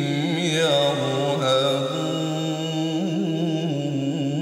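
A male qari's voice in melodic Qur'an recitation (tilawah), drawing out one long vowel as a wavering, ornamented melodic line.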